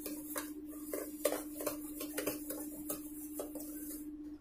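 Thick urad dal batter being beaten by hand in a steel bowl: quick wet slaps and knocks against the bowl at about three strokes a second, stirred continuously in one direction.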